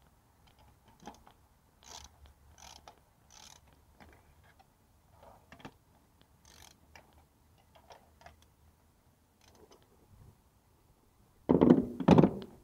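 Scattered soft metallic clicks and clatter of a spark plug socket and ratchet being worked in the plug wells of a petrol engine's cylinder head during a spark plug change, then two loud, brief rustling knocks near the end.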